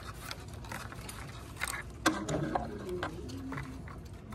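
Thin black ash splints clicking and rustling as they are bent and woven by hand into a basket.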